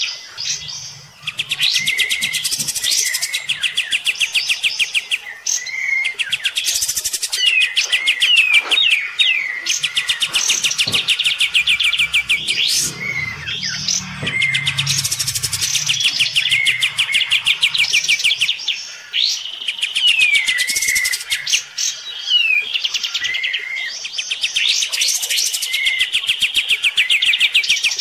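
Kapas tembak songbird singing loudly and without a break, in fast rattling trills of repeated notes broken by whistled slides and short hooked notes. This is its challenge song against a rival kapas tembak next door.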